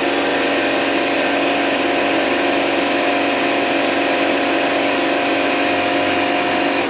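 Small electric air pump running steadily with a hum and rush of air, inflating a whole duck for Peking duck; it cuts off abruptly at the very end, once the duck is full.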